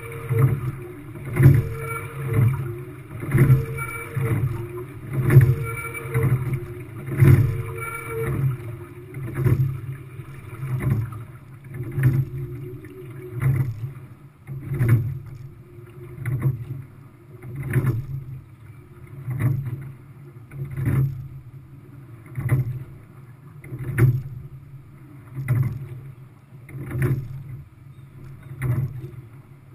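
Quad sculling shell being rowed: a surge of noise with each stroke, with a sharp knock as the oars work and water rushing along the hull. It comes about once every two seconds at first and quickens to about once every one and a half seconds about halfway through. For the first several seconds a squeak sounds with each stroke.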